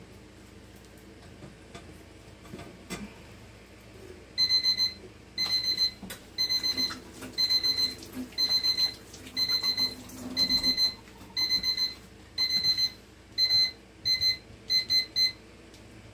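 Timer alarm going off: rapid strings of high-pitched electronic beeps, repeating about once a second from about four seconds in. The timer has run out on a cleaning session that is taking longer than planned.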